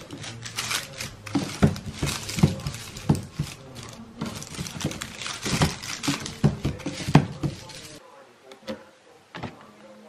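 Plastic bin liner crinkling, with repeated clicks and knocks of a plastic trash can's rim being pressed down over the bag; it settles down to a few clicks near the end.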